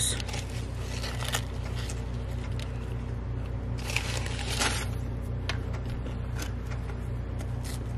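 Steady low hum of a car idling, with scattered light rustles and crackles from food packaging being handled.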